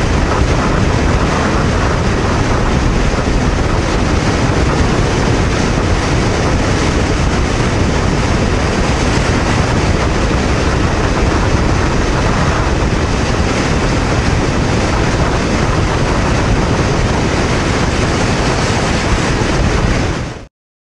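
Steady rush of wind and road noise over the drone of a Honda VTR250's 250 cc V-twin cruising at about 108 km/h on an expressway. Cuts off suddenly near the end.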